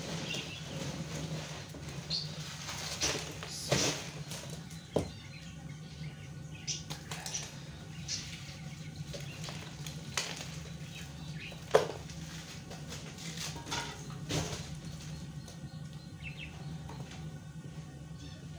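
Raw lungs being handled and dropped into a large metal pot: irregular soft wet slaps and flaps, with a few sharper knocks, the loudest about twelve seconds in, over a steady low hum.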